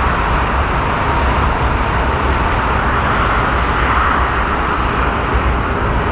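Jet airliner engines running at taxi power, a steady rushing noise, with wind rumbling on the microphone.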